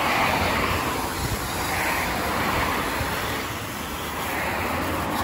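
Pressure-washer jet rinsing foam off a car, a steady hiss of spraying water that waxes and wanes slightly as the jet moves.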